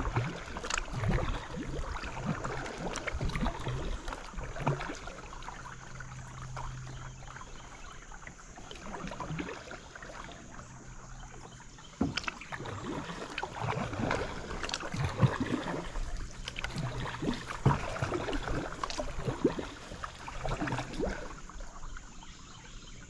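Paddle strokes dipping and splashing in creek water at an uneven pace, with an occasional sharp knock.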